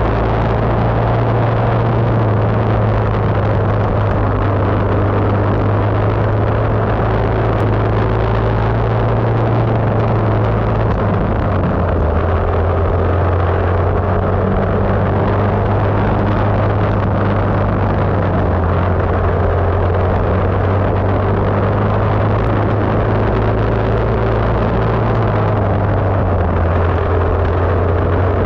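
Racing kart engine running hard on a dirt oval, close up from the kart, over a steady rush of wind and tyre noise. Its pitch sags a little before midway as the kart slows through the turns and climbs again near the end as it picks up speed.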